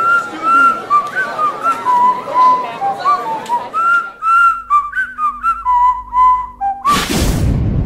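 Whistling: a tune of short notes that glide up and down. About a second before the end it is cut off by a sudden loud noisy burst.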